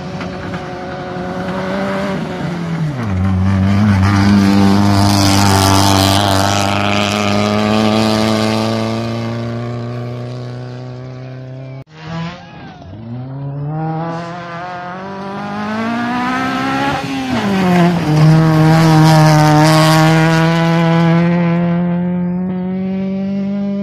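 Rally cars at full throttle on a gravel stage, one after the other. The first car's engine note falls sharply about three seconds in, then holds steady. After an abrupt cut near the middle, a second car's engine climbs in revs, drops suddenly, then holds a steady high note.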